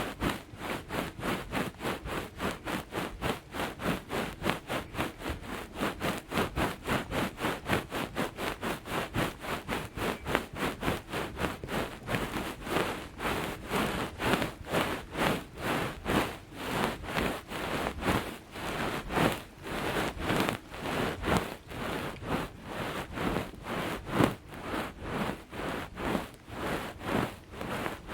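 Close-up ASMR ear picking and gripping on a microphone's ears: quick scratching and rubbing strokes, about three to four a second, kept up without a break.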